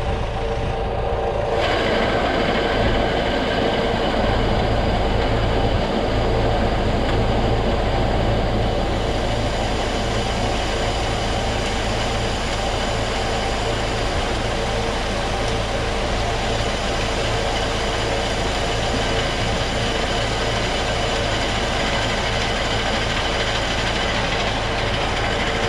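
Grain auger running steadily, lifting grain from the silo up into a bulk bag. About one and a half seconds in, a brighter rushing sound joins the steady hum.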